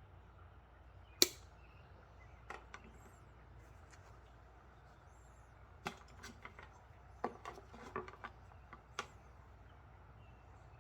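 Hand tools working on electrical wire and terminals: one sharp snap about a second in, then a scatter of light clicks and knocks between about six and nine seconds in, as wire is cut, crimped and handled.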